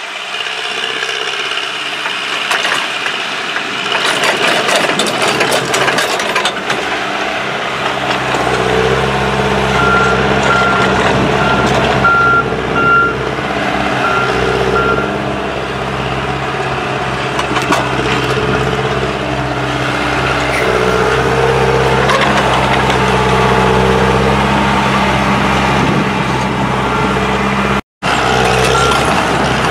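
Diesel engine of a rail-mounted hydraulic tie-handling machine running steadily and working harder from about eight seconds in, with a few knocks of wooden railroad ties in its grapple early on and a run of short high warning beeps about ten seconds in.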